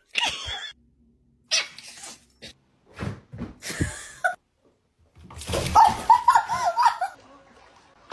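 Pet animal sounds in several short bursts with sudden breaks between them. The loudest, about two thirds of the way in, is a run of wavering high-pitched calls.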